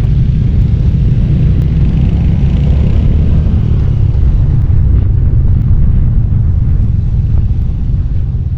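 Royal Enfield Hunter 350's single-cylinder four-stroke engine running steadily as the motorcycle is ridden, a loud low exhaust note.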